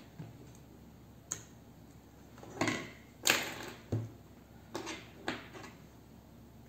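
Small parts and tools being handled on a wooden workbench: a string of separate clicks and knocks, the loudest about three seconds in, with a low thud just after.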